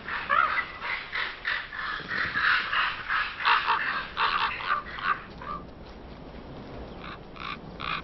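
Ravens croaking and calling over and over in quick succession. The calls thin out after about five seconds, with a few more near the end.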